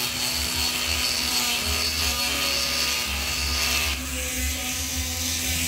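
Home-made hand grinder driven by a 775 DC motor on a 12 V motorcycle battery, its mounted abrasive stone grinding a rusty bar: a steady motor whine under the hiss of stone on the surface, shifting a little about four seconds in.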